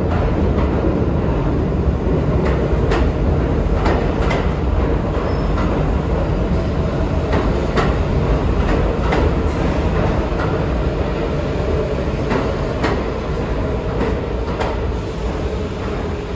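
R46 subway train rolling past the platform with a steady low rumble of steel wheels on rail. Sharp clicks, mostly in pairs, come every second or two as the wheel trucks cross rail joints.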